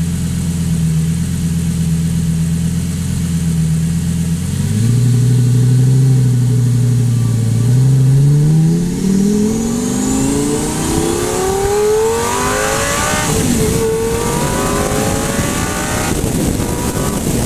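Lamborghini Gallardo V10 running through a Fabspeed Super Sport X-pipe exhaust. It holds a steady note, then about eight seconds in revs up with a smooth rise in pitch lasting about five seconds, before levelling off at a higher pitch.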